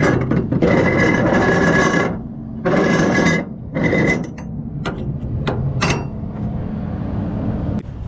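Ratchet-strap webbing rasping as it is drawn through and tightened, in two long pulls about a second and a half and half a second long, then a few scattered sharp clicks from the ratchet hardware.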